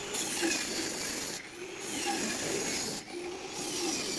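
Wood being worked with a hand tool in long rasping strokes, broken by short pauses about every second and a half.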